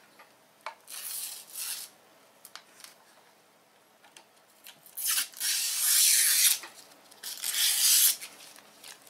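Plastic desktop power strip being handled, its casing rubbing and scraping in three bursts, the middle one longest and loudest, with a few light taps between.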